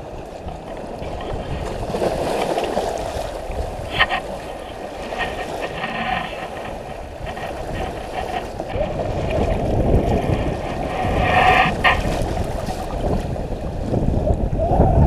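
Shallow surf washing and splashing around a shark being released by hand, with a few sharper splashes about four seconds in and again near twelve seconds as it thrashes off. Wind rumbles on the microphone throughout.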